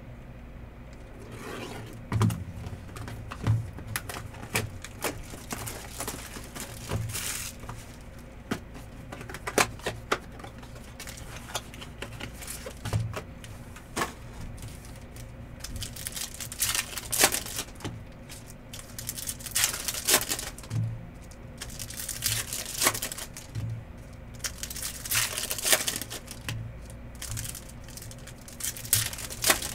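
Sports card packs being torn open and their foil wrappers crinkled, with many small clicks and taps as the cards are handled. Louder bursts of crinkling come in the second half.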